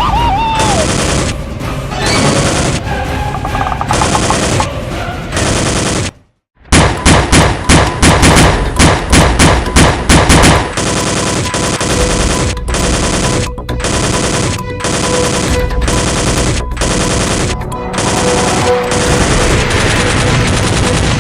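Rapid gunfire sounds over background action music: about six seconds in, the sound cuts out briefly, then a loud burst of shots, about three a second, runs for roughly four seconds before the music carries on alone.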